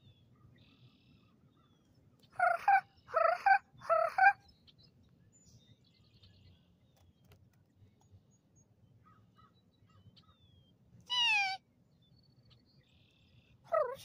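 Crow-like caws: three loud caws in quick succession, then a single falling caw about eleven seconds in and another just at the end.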